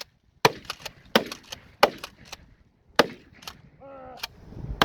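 Remington 870 Marine Magnum 12-gauge pump-action shotgun fired about five times in quick succession, roughly a shot a second, at water-filled pumpkins. Lighter clacks come between the shots.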